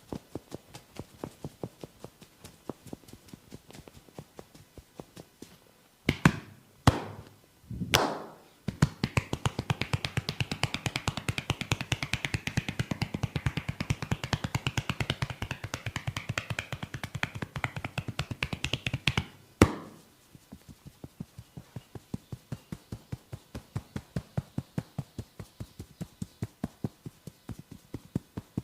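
A barber's hands tapping rhythmically on a client's head during a percussive head massage, about three to four strokes a second. Around a third of the way in come three loud slaps. Then the hands drum much faster and denser for about ten seconds, ending in one more loud slap before the slower tapping returns.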